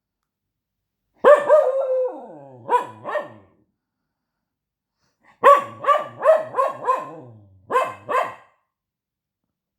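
Dog barking in protesting, talking-like bursts. About a second in comes one bark drawn out into a falling moan, then two short barks. After a pause there is a quick run of about six barks, then two more near the end.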